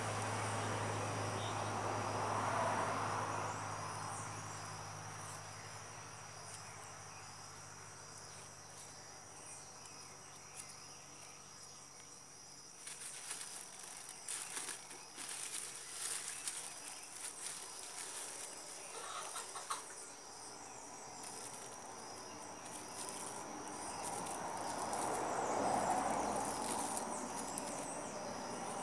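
Insects chirring steadily in a high, thin tone, with a broad rushing noise swelling up and fading near the start and again near the end. Light rustles and clicks from hands handling grafting plastic come midway.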